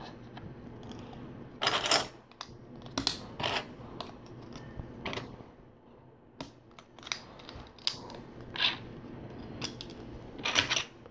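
LEGO plastic pieces clicking and clattering at irregular moments as they are handled and pressed together, with a louder cluster of clicks about two seconds in and another near the end.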